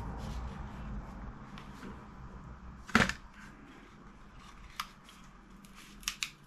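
Handling of a diabetes injection pen and its packaging: rustling and knocking, one sharp click about three seconds in, and a few lighter clicks near the end.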